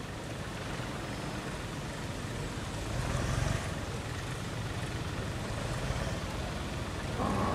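Tractor engine running as it pulls a loaded trolley through floodwater, with the wash of water churned around its wheels. The water surges louder for a moment about three seconds in.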